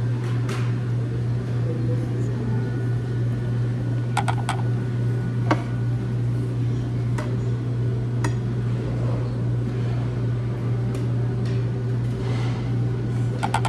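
Metal fork and knife clinking and scraping on a ceramic plate while eating salad, a few single clinks and then a quick run of clinks near the end, over a steady low hum in the dining room.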